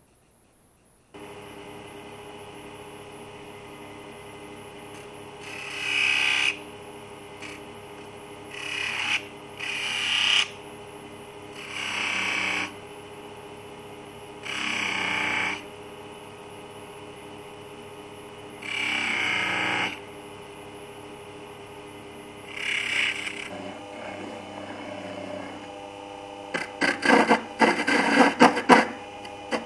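CNC007 mini lathe's small motor running steadily while a cutting tool is pressed against the spinning black alder blank in about seven separate passes, each lasting a second or so. Near the end comes a quick series of short scrapes.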